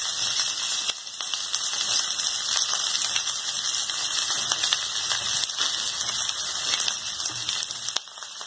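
Sliced onions sizzling in a little hot oil in a kadhai: a steady sizzle with many fine crackles.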